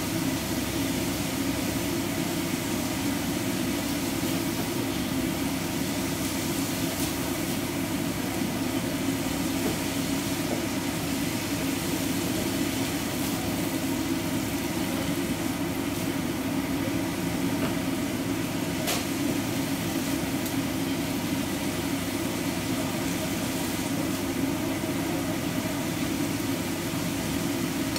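Minced beef and bean sprouts frying in a nonstick pan, stirred and tossed with a spatula, with a few light spatula clicks against the pan, over a steady low hum.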